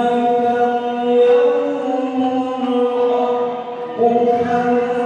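A man reciting the Quran in melodic tilawah style into a microphone, holding long drawn-out notes, with a new phrase starting about four seconds in.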